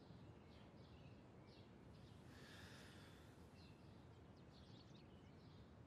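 Near silence: faint background ambience with a few short, faint high chirps scattered through it.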